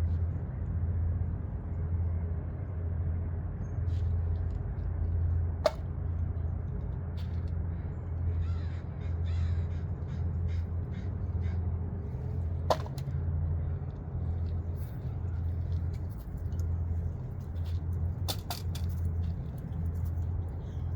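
Steady low outdoor rumble with birds calling, cawing crows by the sound of it, and two sharp clicks well apart.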